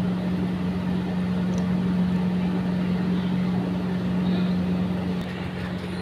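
Steady low mechanical hum with one constant droning tone and a noisy wash over it, unchanging in level.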